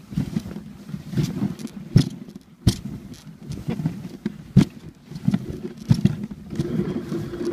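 Dog sled running over a snowy trail: an uneven, rumbling scrape of the runners on the snow. It is broken by three sharp knocks from the sled, about two seconds in, again shortly after, and near the middle.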